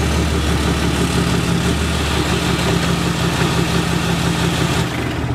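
Cummins inline-six turbo-diesel pickup engine idling steadily, with a loud even hiss over it that stops near the end.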